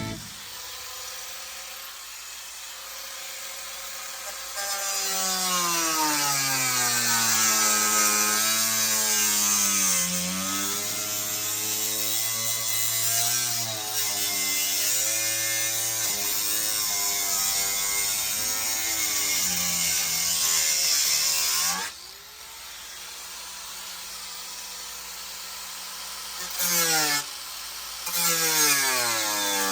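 A power tool's motor running and cutting, its pitch sliding down and up as the load changes. It stops about three-quarters of the way through and then restarts in short bursts near the end.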